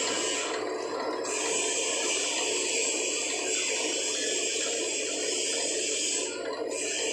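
Workshop machinery running steadily: a continuous hiss over a low electric hum. The upper hiss dips out briefly twice.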